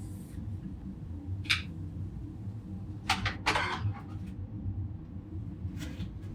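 A few short, sharp clicks and rustles of handling over a steady low hum: one about a second and a half in, a denser cluster about three seconds in, and fainter clicks near the end.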